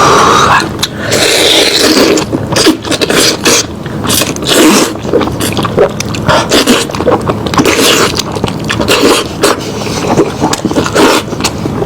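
Close-miked eating sounds: lamb head meat being chewed and gnawed, with irregular wet clicks and scraping.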